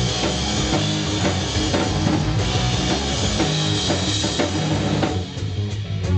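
Live rock band playing loud: drum kit with crashing cymbals, bass and electric guitars. About five seconds in, the drums and cymbals fall away and the bass and guitar carry on.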